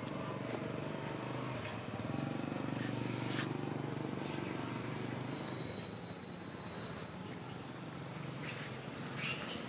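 A steady low engine hum that fades about six seconds in, with short high animal chirps scattered throughout.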